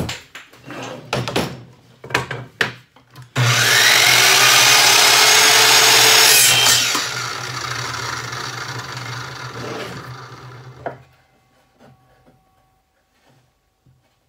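A few wooden knocks and clicks as pieces are handled, then a compound miter saw cutting a wooden strip. The blade runs loud for about three seconds, then winds down with a falling whine and stops a few seconds later.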